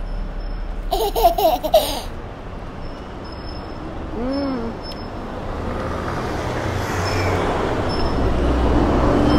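Street traffic rumbling, building toward the end as a vehicle draws near. About a second in, a short wordless vocal reaction from the woman tasting the food, and a brief hummed 'mm' around four seconds.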